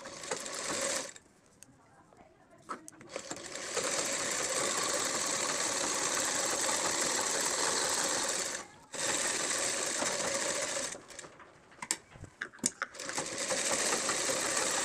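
Sewing machine stitching a seam. It runs in stretches: a short burst at the start, then steady running broken by two brief stops, with a few clicks in the pauses.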